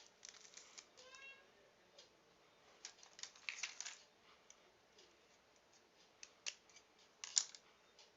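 Light, scattered clicks and short rustles of soldering iron kit parts and packaging being handled, with one sharper click about seven seconds in.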